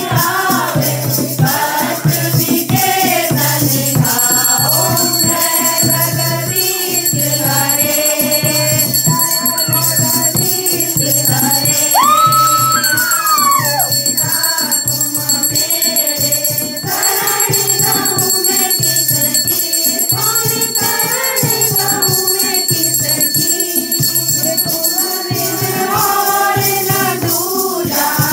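A group of women singing a Hindu devotional kirtan together, with shaken hand percussion keeping a steady beat.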